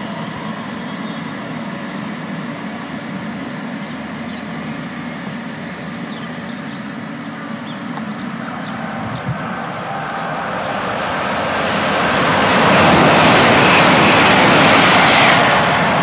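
A train passing on the main line, its rumble of wheels on rails and rushing air building from about ten seconds in to a loud rush near the end.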